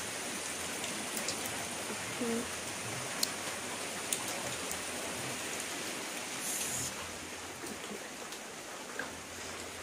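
Steady rain falling, an even hiss with a few light drips and clicks.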